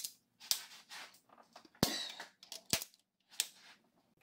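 Irregular sharp clicks and metal clinks of a wrench and star-bit socket working the cylinder head bolts of a 1.6 N16 engine, during the final 90-degree torque-angle pass.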